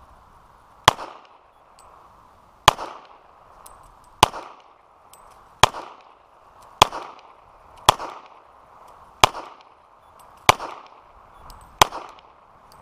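A steady string of single gunshots, about nine, roughly one every second and a half, each followed by a short echo.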